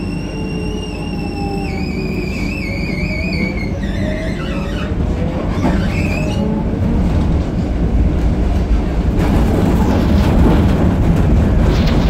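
Tram running on its rails, heard from inside the car: a steady low rumble with a high wavering whine in the first few seconds, growing louder in the second half.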